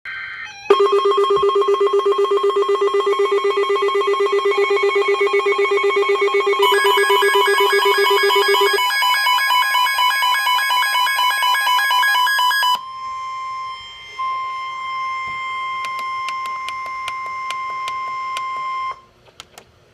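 Emergency Alert System alert tones: a loud, fast-pulsing electronic alarm made of several layered tones. The pattern changes about seven and again about thirteen seconds in, settles into steadier tones, and cuts off about nineteen seconds in. These tones herald a severe thunderstorm warning.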